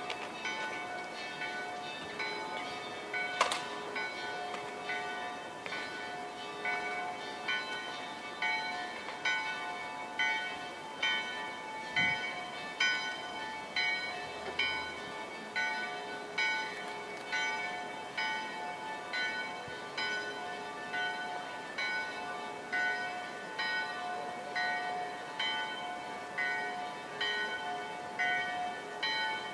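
Church bells ringing a peal: several bells of different pitches struck one after another, about two strikes a second, each note ringing on. There is a sharp knock about three and a half seconds in.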